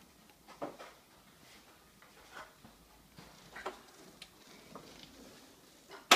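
Scattered light taps and clicks from a cat's paws and claws on a hardwood floor as it plays with a small plush toy, with one sharper click near the end.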